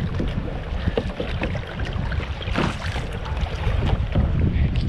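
Wind rumbling on the microphone over water splashing and lapping against a kayak as it is paddled, with a louder rush of water about halfway through.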